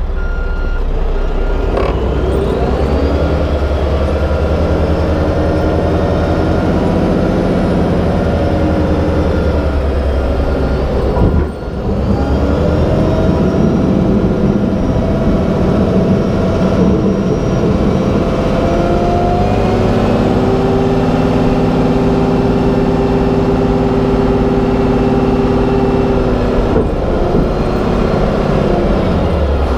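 Mack Granite plow truck's diesel engine running under load, its pitch rising and falling as it changes speed, over a steady rushing noise from the moving truck.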